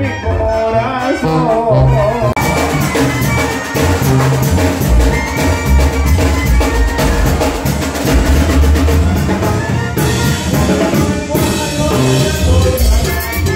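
Live Mexican banda playing, with brass, tuba and drum kit; cymbals and the full band come in about two seconds in.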